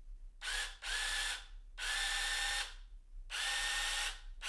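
Sainlogic battery-powered mini chainsaw's brushed electric motor and chain running unloaded in several short trigger bursts, each about a second long with brief pauses between, a steady whine each time.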